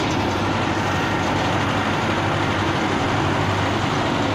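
Tractor's diesel engine running steadily as the tractor drives off towing a seeder and harrow.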